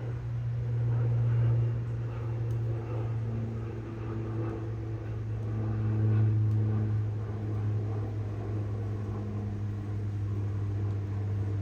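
Honeybee colony humming at the hive: a steady drone with a deep hum and higher buzzing tones that wander in pitch, swelling a little about a second and a half in and again around six seconds.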